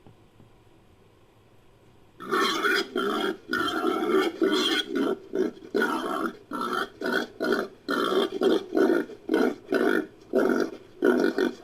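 Wild boar grunts reworked into a creature sound effect for a giant forest hog: about two seconds of near silence, then a rapid run of short grunts, two to three a second.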